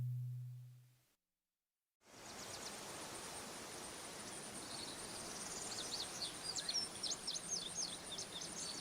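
A low held note from the music fades out, then after a second of silence faint outdoor ambience comes in, with high chirping of birds and insects that becomes a quick, regular trill near the end.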